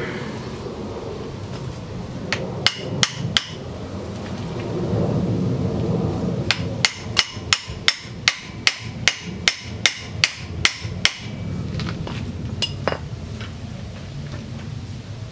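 Sharp metallic tapping: three taps, then after a pause a run of about a dozen at roughly three a second, and one last tap. A hand tool is knocking a tight-fitting part into place at a pitbike's rear wheel and brake caliper.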